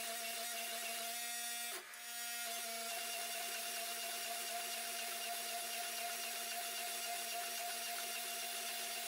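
Hydraulic forging press running steadily, a constant motor-and-pump hum under a hiss, while a hot damascus billet is squeezed between its dies. The sound dips briefly about two seconds in.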